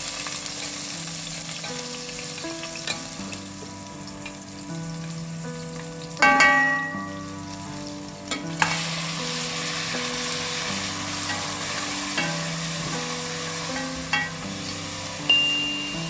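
Food sizzling as it fries in oil in a pan, with a few sharp clinks, the loudest about six seconds in, over soft background music.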